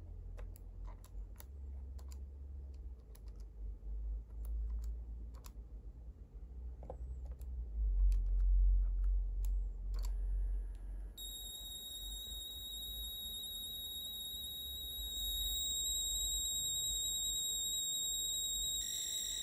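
Keys of a Sharp PC-1251 pocket computer clicking as the CLOAD command is typed, with a low rumble under them and a sharper click about ten seconds in. Then comes a steady high-pitched data tone from the CE-125 microcassette recorder playing back a stored program as it loads, and its tone pattern changes near the end.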